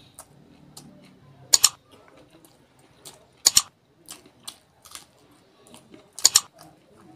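Close-miked chewing and eating mouth sounds: three loud, crisp double clicks spaced about two seconds apart, with fainter smacks and clicks between them.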